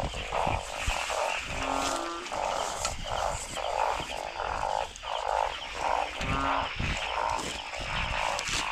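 A chorus of frogs calling in rapid croaks, about two to three a second, with a steady high insect trill behind them. A couple of short, higher-pitched calls stand out, about two seconds in and again near six seconds.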